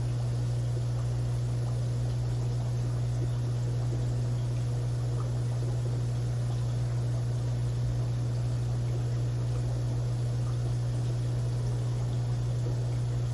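Aquarium filter running: a steady low hum with an even hiss of moving water over it.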